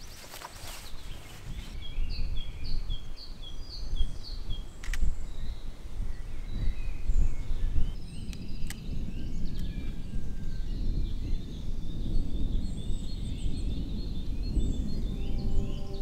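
Songbirds singing: a quick series of repeated chirps early on, then scattered calls, over a steady low rumbling noise. Two sharp clicks about three and a half seconds apart, and a soft held music tone enters near the end.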